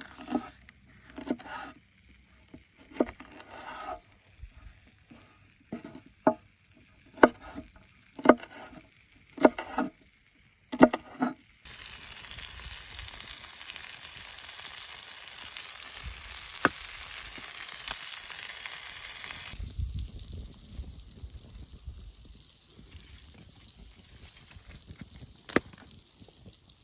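A knife chopping on a cutting board, single sharp strokes about a second apart. Then food sizzling in hot oil, a steady hiss that starts suddenly and cuts off after about eight seconds, followed by a short low rumble.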